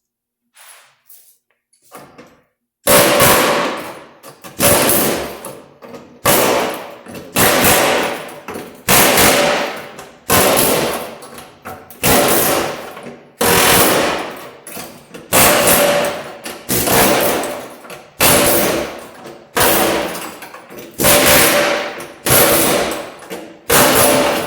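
Pneumatic air chisel cutting through the sheet-steel rocker panel, fired in repeated rattling bursts about every second and a half, starting about three seconds in.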